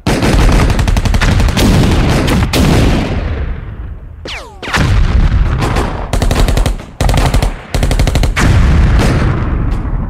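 War-themed ringtone made of battle sound effects: loud bursts of rapid machine-gun fire and gunshots with short breaks between them, and a falling whistle about four seconds in.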